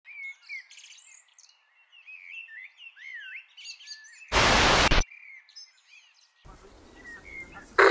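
Birds singing and chirping, many short whistled calls and warbles overlapping. About four seconds in, a loud burst of hiss-like noise cuts across them for under a second.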